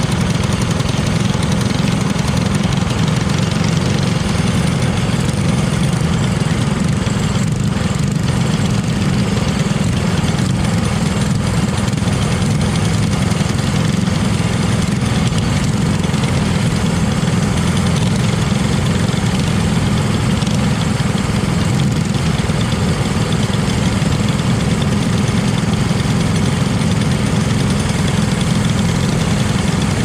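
Briggs & Stratton LO206 four-stroke single-cylinder kart engine idling steadily, with other karts idling close by.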